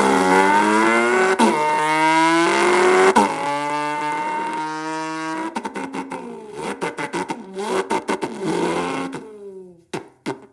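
A person imitating the engine of a Ferrari 488 with their voice: a loud revving drone that climbs in pitch, drops and holds as if shifting gears, then breaks into short sputtering pulses in the second half before stopping.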